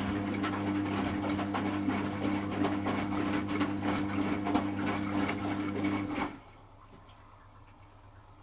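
Servis Automatic M3008B washing machine tumbling its load in the final rinse: a steady motor hum with water and wet clothes sloshing in the drum. It stops suddenly about six seconds in as the drum pauses.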